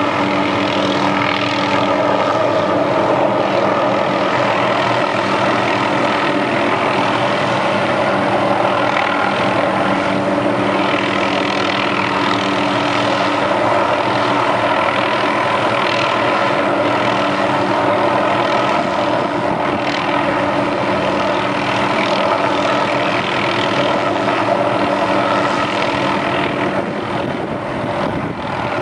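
MD 500 light turbine helicopter hovering close by, its rotor and engine giving a loud, steady drone with an even hum underneath.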